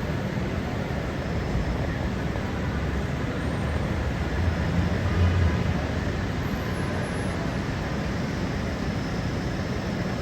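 Steady city-street noise on a rainy day: an even hiss of rain and wet traffic, with a low rumble that swells briefly about halfway through.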